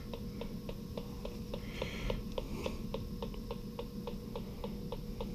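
Bacharach electronic gas leak detector ticking steadily, about seven ticks a second, as its probe is swept along a boiler's gas valves and piping to sniff for natural gas.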